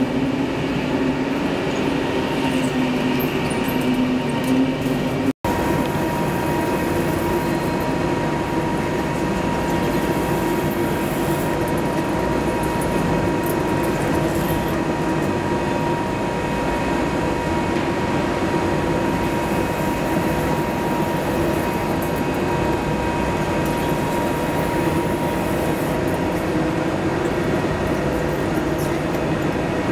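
CNC double-column vertical lathe turning a large steel workpiece: a steady mechanical drone of the rotating table and the cutting tool working the metal, with a steady hum. About five seconds in the sound drops out for an instant and comes back as the same steady drone with a thin, constant high whine over it.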